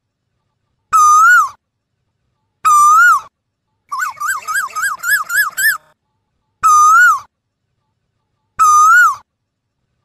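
Asian koel calling: a loud whistled note that rises then falls, repeated about every two seconds, four times. In the middle comes a quick run of about eight shorter notes that creep up in pitch.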